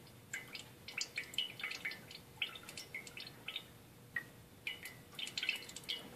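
Cream dripping from an upturned plastic jug into a glass butter-churn jar: irregular small, high plinks, several a second.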